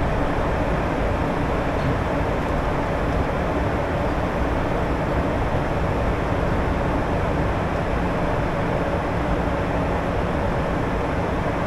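Steady flight-deck noise of a Gulfstream G150 business jet in flight: a constant rush of airflow over the cockpit with a low hum from its Honeywell TFE731 turbofan engines.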